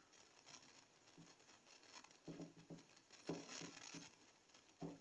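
Marker pen writing on a whiteboard: faint short scratching strokes, a cluster about two to four seconds in and one more near the end, in a small room.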